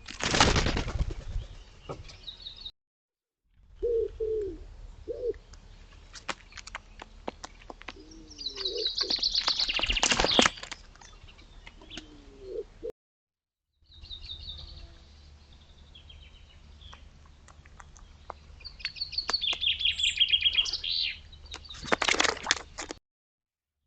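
Birds at a small garden pond: wingbeats as birds fly in and take off, heard in three bursts. There are also rapid, harsh, chattering calls and a few low cooing notes. The sound cuts out briefly twice between separate trail-camera clips.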